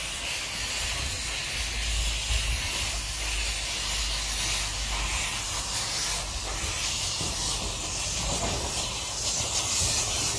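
Narrow-gauge 0-4-0 well-tank steam locomotive, Talyllyn Railway No. 2 'Dolgoch', moving slowly with its cylinder drain cocks open, giving a steady loud hiss of escaping steam.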